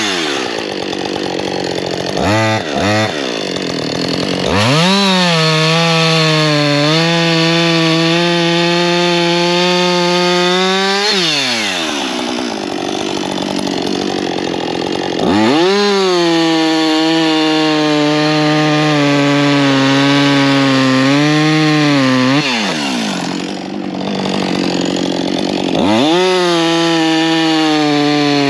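Husqvarna 562 XP two-stroke chainsaw making cuts in wood. After a couple of short blips of throttle it runs flat out three times for about six or seven seconds each, its pitch sagging and wavering as the chain bites and loads the engine, then easing off between cuts.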